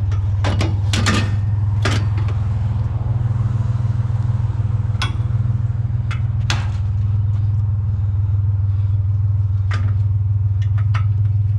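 A vehicle engine idling steadily with a low hum, with scattered sharp metal clanks and knocks as scrap from a barbecue grill is handled.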